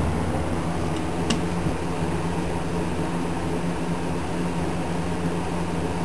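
Vintage Lakewood K-223 box fan, a second-generation model, running steadily: a low motor hum under the rush of air from the blades. A single brief click comes about a second in.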